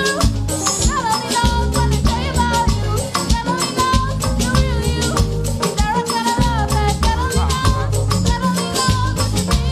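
Upbeat gospel praise dance music: a band playing a steady fast groove with shaker-type rattle percussion, drums and bass under a sliding lead melody line.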